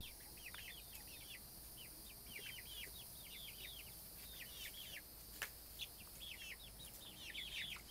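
A flock of two-month-old chickens peeping: many short, high, falling cheeps in quick succession, with a single sharp click about five and a half seconds in.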